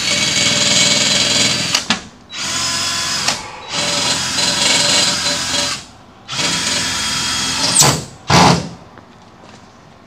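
Power drill running in four separate runs of about one and a half to two seconds each, its motor pitch steady in each run. Near the end comes a short, loud noise.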